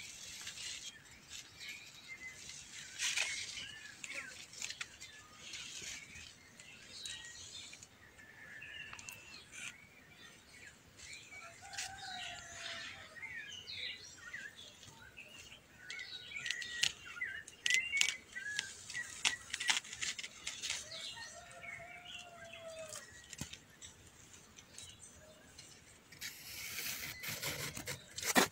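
Small birds chirping and calling in a cornfield, with a lower drawn-out call twice. Bursts of rustling from corn leaves brushing past as someone walks through the plants, and a knock of handling near the end.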